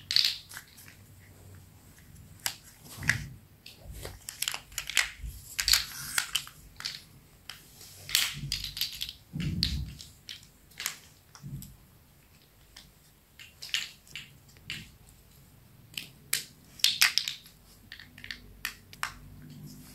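Small plastic interlocking building blocks clicking and rattling as they are pressed together and handled, in irregular clusters of sharp clicks.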